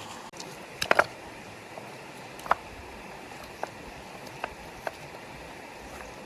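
Steady rush of a running stream, with sharp knocks or clicks over it: three close together about a second in, then single ones every second or so.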